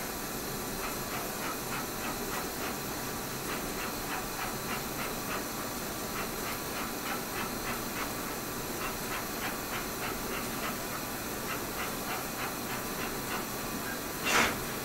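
Solder-paste stencil printer's vision gantry moving: a steady machine hiss with faint, even ticks about three times a second, and a louder short noise near the end.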